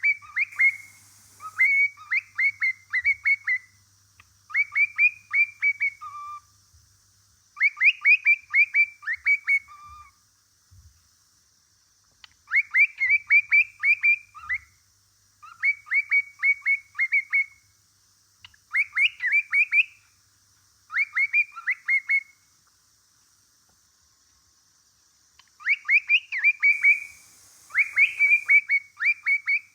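Male cockatiel singing its courtship song: bursts of four to six quick chirping notes, repeated every second or two, with a pause of a few seconds near the end.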